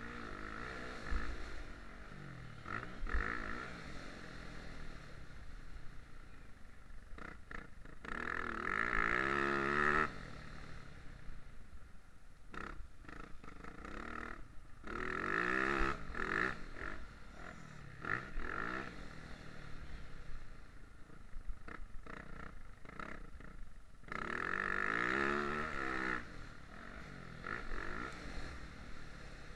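Motocross bike engine heard on board during a lap. It revs up in long rising sweeps through the gears several times, about 8, 15 and 25 seconds in, and drops back off the throttle between them, with occasional knocks from the bumpy track.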